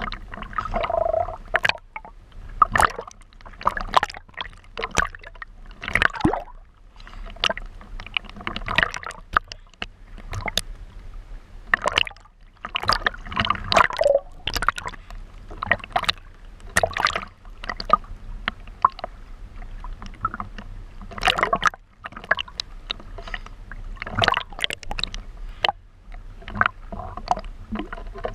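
Choppy sea water splashing and gurgling against a GoPro in its waterproof housing, in irregular splashes about once or twice a second as the camera bobs through the waves and dips in and out of the water.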